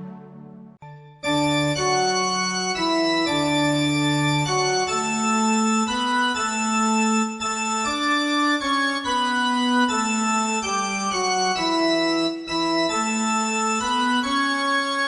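Organ playing held chords with a moving melody line. The notes sustain without dying away. A brief break about a second in, then the playing resumes.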